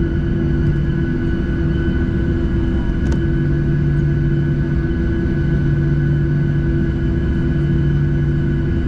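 Cabin noise of a Boeing 737-700 taxiing, heard from inside over the wing. Its CFM56-7B engines run at taxi idle as a steady low rumble with several constant hum tones, the lowest of them fading in and out.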